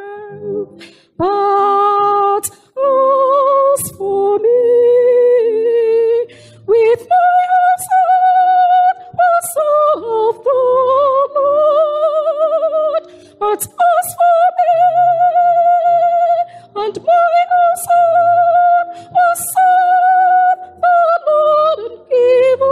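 A woman singing a slow song in long held notes with a wavering vibrato, over soft low accompaniment.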